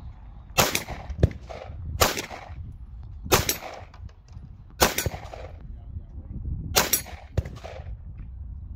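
Five handgun shots fired one at a time, evenly paced about one and a half seconds apart, each with a short echo trailing off. A couple of fainter sharp cracks fall between them.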